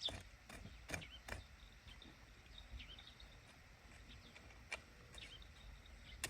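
Faint outdoor ambience with small birds chirping now and then, and a few sharp clicks from hands working, several in the first second or so and one more later on.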